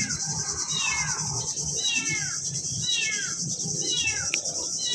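A bird calling short whistled notes that slide downward, in a small cluster about once a second. Behind it is a steady, high-pitched insect drone.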